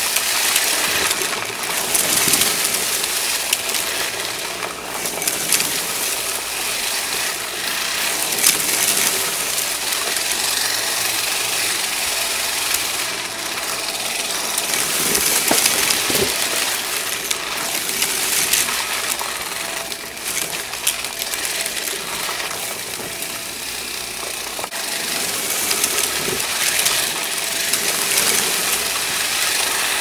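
Shark stick vacuum running steadily on carpet, sucking up confetti that clicks and rattles into the clear dust bin.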